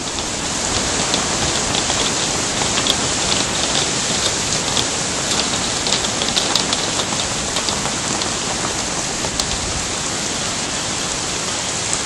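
Heavy rain falling steadily: a loud, even hiss with scattered sharp ticks of drops striking close by.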